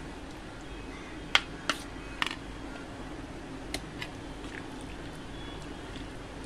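Metal spoon stirring chicken pieces through a thick masala marinade in a bowl, with about five sharp clinks of the spoon against the bowl, the loudest about a second and a half in. A steady low hum underneath.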